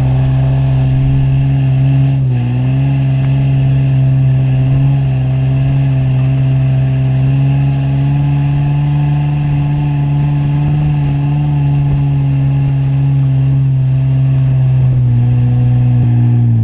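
Off-road truck engine pulling steadily under load as it climbs through snow, holding an even pitch with a brief dip in revs about two seconds in.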